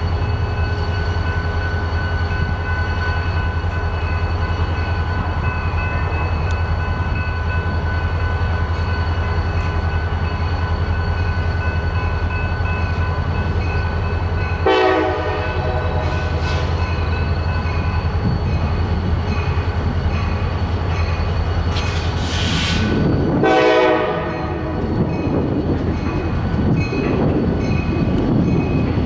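Norfolk Southern EMD GP38-3 diesel locomotive running by with a steady low engine drone, sounding its horn in two short blasts, about halfway through and again about nine seconds later.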